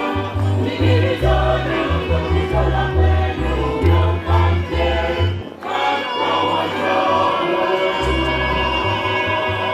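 Gospel choir music: several voices singing over a bass line that plays in short blocks, with the bass dropping out for about two seconds around the middle.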